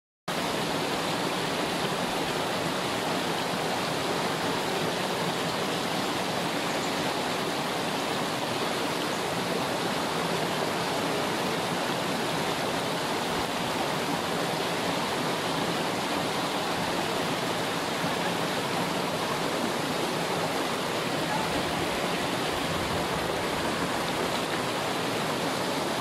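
Small waterfall pouring over rocks into a pool: a steady, unbroken rush of water.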